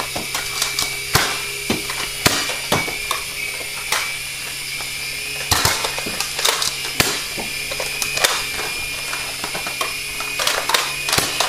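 Small electric 3-channel coaxial RC helicopter whining steadily in flight, with irregular sharp clicks and knocks from Nerf blasters firing and darts striking.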